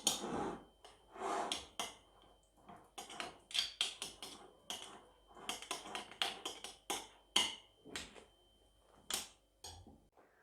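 Scattered light knocks and clicks of kitchen utensils and glass jars being handled as the ground fig-and-garlic paste is packed into jars, irregular and with no steady rhythm.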